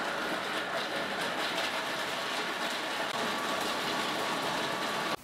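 CombiMax 700 food processor running at speed, its blade chopping walnuts with garlic and salt, the pieces rattling against the plastic bowl in a steady, even noise that cuts off suddenly at the end.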